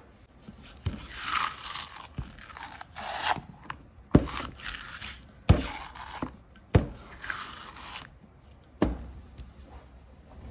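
Nail-art tools and containers being handled on a silicone mat: rubbing and scraping swishes, with four sharp knocks as items are set down.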